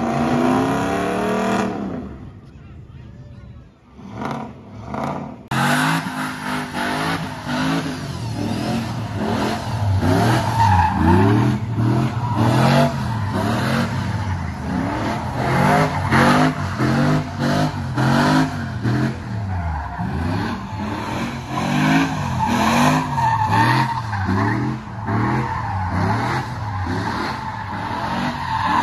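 Pickup truck doing a burnout: the engine revs up and down over and over while the tires squeal and skid on the pavement. The sound drops away about two seconds in and comes back about three seconds later.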